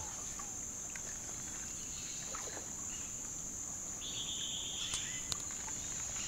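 Insects buzzing in a steady, high-pitched drone, with a second, lower buzzing call about four seconds in that lasts about a second. Two sharp clicks come near the end.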